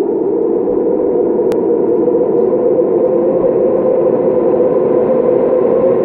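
Steady engine drone echoing through a road tunnel, slowly growing louder and edging up in pitch, with one sharp click about a second and a half in.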